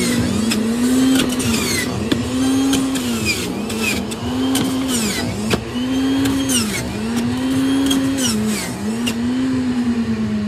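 Electric centrifugal juicer running, its motor whine sagging in pitch and recovering every second or so as pineapple pieces are pressed down the feed chute and shredded, with clicks and high scraping sounds from the fruit being ground.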